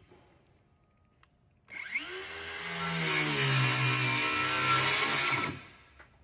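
DeWalt cordless circular saw starting up about two seconds in, its pitch climbing quickly, then cutting through a 3/8-inch UHMW plastic liner sheet with its pitch sagging midway, and winding down about five and a half seconds in.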